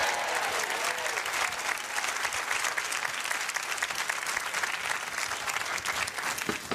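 Studio audience applauding and cheering, with whoops and shouts near the start that die away after a second or so, leaving steady clapping.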